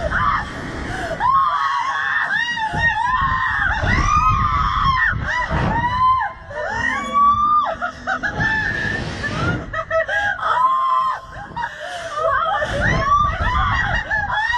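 A young woman screaming over and over on a slingshot thrill ride: a string of high-pitched shrieks that rise and fall, each a second or less long.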